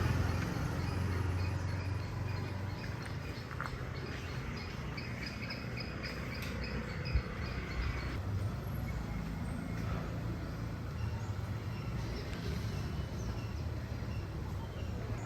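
Outdoor ambience: a run of quick, evenly repeated bird chirps over a steady low rumble of distant traffic, with a single sharp knock about seven seconds in.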